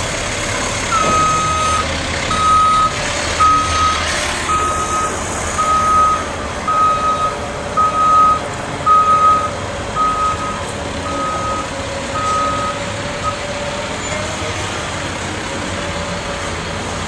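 A truck's reversing alarm beeping about once a second, the same single tone about a dozen times, stopping about 13 seconds in, over the steady running of a truck engine.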